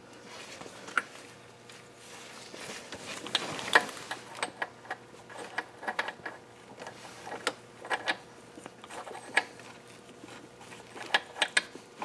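Scattered light metal clicks, clinks and scraping as parts on a KA24DE crankshaft snout are pushed back on over the crank key during a timing chain job.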